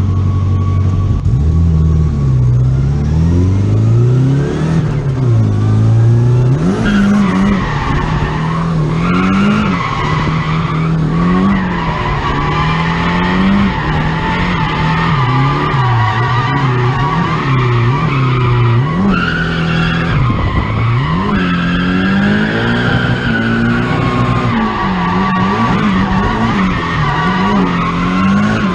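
Straight-piped Nissan 240SX SR20DET engine revving hard, its pitch climbing and dropping sharply every second or two as the car is clutch-kicked through a drift, with tyres squealing throughout.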